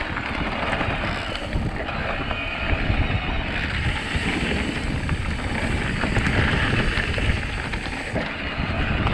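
Electric mountain bike ridden fast along a forest trail: tyres rolling over the rough ground and the bike rattling over bumps, with wind buffeting the microphone.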